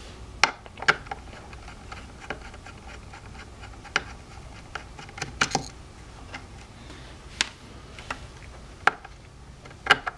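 Screws being taken off the transistors of a hoverboard logic board with a screwdriver: scattered, irregular sharp clicks and ticks of the metal tool against screw heads and board.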